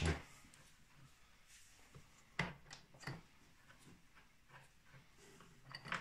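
A few light clicks and knocks as the snowmobile's chaincase gears and chain are handled and fitted by hand. There is one at the start, a few more about two and a half to three seconds in, and one near the end.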